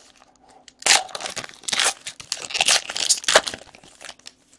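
The foil wrapper of a Panini Excalibur basketball card pack being torn open and crumpled by hand: a run of crackling tears that starts about a second in, with several louder rips.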